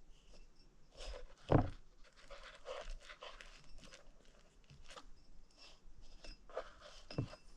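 Handling noises of small water pump seal parts being worked by hand: scattered light clicks and rubbing, with a louder knock about a second and a half in and another near the end.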